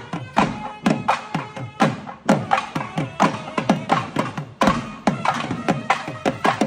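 Traditional temple-festival drumming: several drums beaten together in a fast, steady rhythm, with a held melody line playing over the drums.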